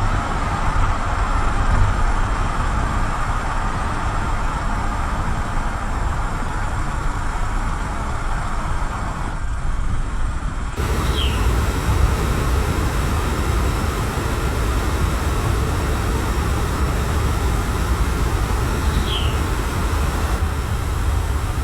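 Outdoor market ambience: a steady wash of background crowd noise over a heavy low rumble like passing traffic, with two brief high chirps about eight seconds apart.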